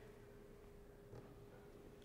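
Near silence: room tone with a faint steady hum and one faint tick about a second in.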